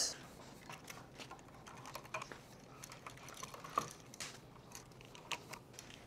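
Faint, scattered small clicks and taps of wires being fitted and fastened to the load-side terminals of a GFCI outlet, with one sharper click about two-thirds of the way through.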